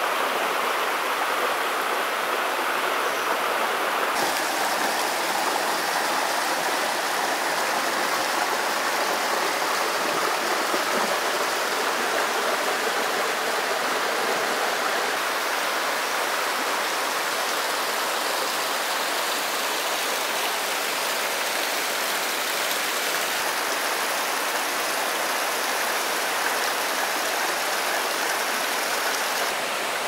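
Rushing water of a mountain stream, a steady noise; its tone shifts slightly about four seconds in and again past twenty seconds.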